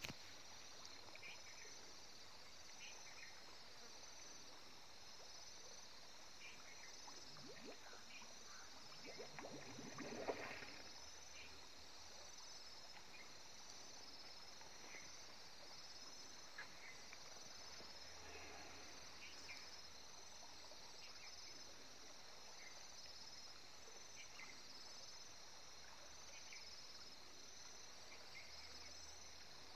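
Faint, steady chorus of insects chirping in a high, evenly pulsing trill, with scattered faint short chirps and one brief louder sound about ten seconds in.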